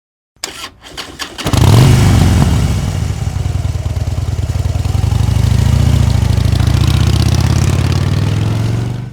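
Motorcycle engine starting: a few clicks, then the engine catches about a second and a half in, briefly loudest, and runs steadily before cutting off abruptly near the end.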